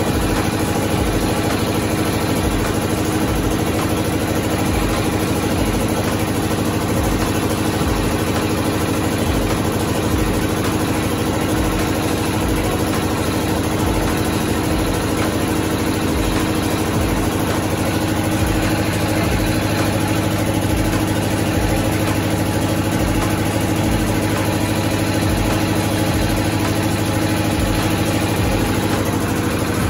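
Engine of a borewell drilling rig running steadily: an even hum with a regular low pulse beneath it.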